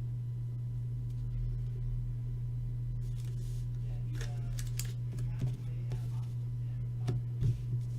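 Steady low hum with a few light clicks and taps scattered through it.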